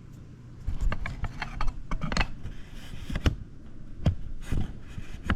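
Handling noise from a small plastic 1/24-scale RC crawler being turned over in the hands: scattered irregular clicks and knocks, about five sharp ones, over a low rumble.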